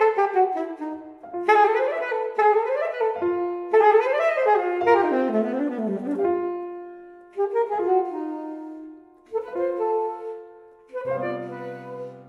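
Alto saxophone and piano duo playing jazz: the piano runs up and down in quick rising and falling figures while the saxophone plays a line over it. In the second half the music grows softer, with the saxophone holding long notes, and a low piano chord comes in near the end.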